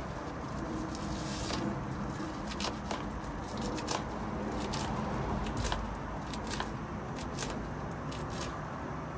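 Kitchen knife chopping fresh kale leaves against a plate: about a dozen short, irregular cuts, over a steady low rumble.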